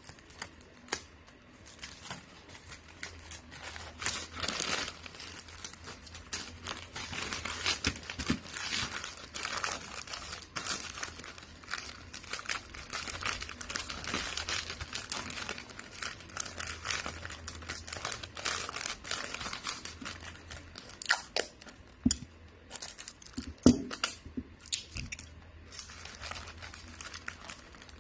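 Wrapping paper crinkling and rustling as it is folded and pressed around a gift box, with a few sharp knocks near the end.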